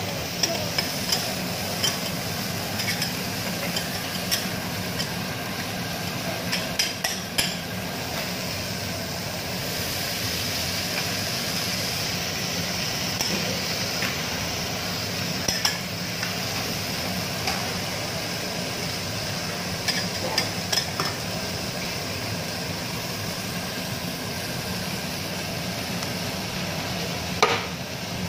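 Shredded cabbage and bean sprouts sizzling on a hot steel teppanyaki griddle, with metal spatulas scraping and clacking against the plate at irregular moments over a steady low hum. A louder sharp knock comes near the end.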